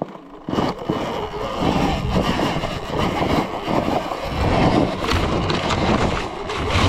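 Riding noise from a Surron Ultra Bee electric dirt bike on a dirt trail: a loud, uneven rush with no clear motor tone, starting suddenly about half a second in.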